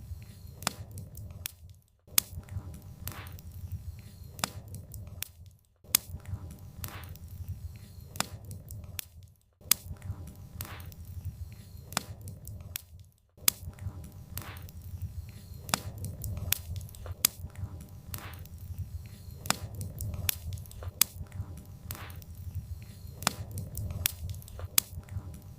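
Wood fire crackling, with frequent sharp pops over a low rumble of flames. It cuts out for a moment about every four seconds in the first half, then runs on unbroken.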